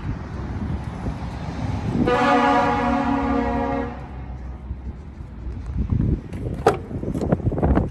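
A vehicle horn sounds once, a steady single tone held for nearly two seconds. A few sharp knocks and clunks follow near the end, as the truck's cab door is handled, over a low rumble.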